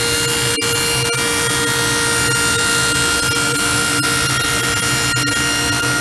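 Table saw with a stacked dado blade running steadily and cutting a dado across black walnut, a loud rushing noise with a steady whine over it.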